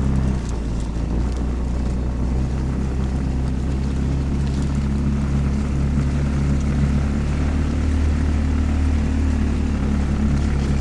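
Farm buggy's engine running steadily while it drives along, a low, even engine note.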